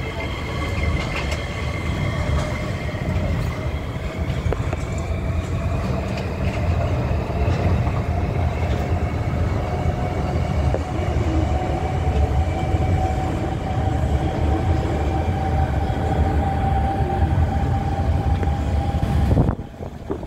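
Tokyo Monorail train running, heard from inside the car: a steady low rumble with a motor whine that rises slowly in pitch as the train picks up speed out of the station. The sound drops away abruptly near the end.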